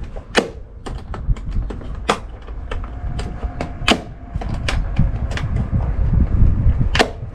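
Plastic cabin-filter housing and cover of a Mercedes C200 being refitted by hand: irregular clicks and knocks as the parts are seated and the three clips snapped shut, with a few loud snaps, over a low rumble.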